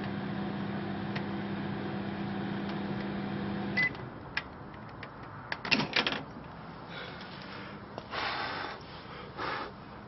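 Microwave oven running with a steady electrical hum, which cuts off with a click and a short beep about four seconds in. Then come a few sharp clicks and a louder clatter of knocks about six seconds in, as of the door being opened, and some handling rustle near the end.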